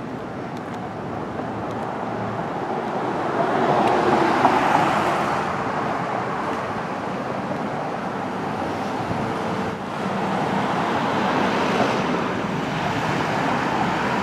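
Street traffic: cars going by on a town main street, a steady rush that swells as vehicles pass, most strongly about four seconds in and again near the end.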